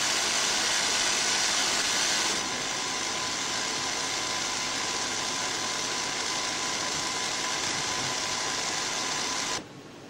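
Steady whirring hum of running Robotron R4201 computer equipment, with a faint steady tone in it. It eases slightly after about two seconds and drops sharply to a quieter hiss near the end.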